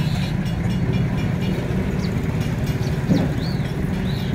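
A steady low engine rumble, with a few short high chirps over it.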